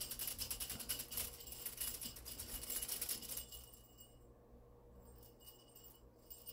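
Faint rustling with many small clicks, which stops about three and a half seconds in, leaving a low steady hum.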